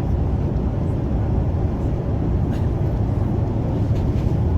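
Yutong bus on the move: a steady low rumble of engine and road noise with no change in pace.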